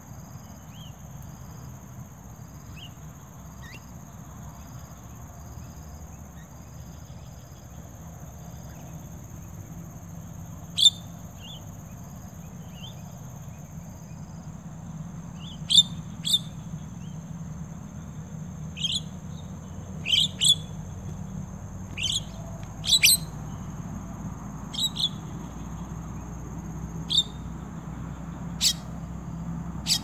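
Jalak (starlings) calling: about a dozen short, sharp calls, singly or in quick pairs, starting about ten seconds in. A steady high insect drone runs underneath.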